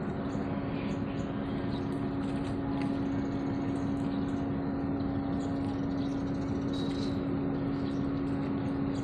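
Ro-ro ferry's diesel engines running with a steady low hum and rumble as the ship pulls away from its berth.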